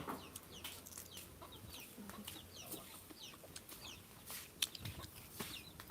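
Chickens clucking faintly in the background, with many short high chirps repeating and a few sharp clicks.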